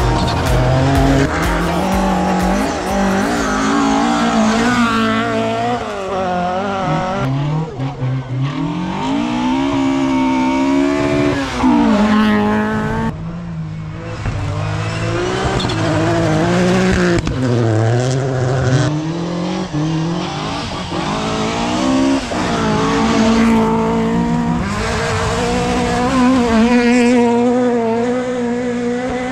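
Rally cars driven flat out on gravel forest stages, several passes one after another: engines revving up and dropping back repeatedly through gear changes and corners.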